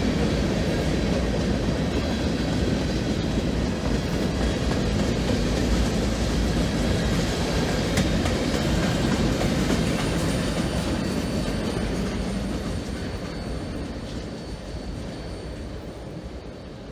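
Freight cars rolling past with wheel clatter and a faint high wheel squeal on the curve, fading away over the last few seconds as the train recedes.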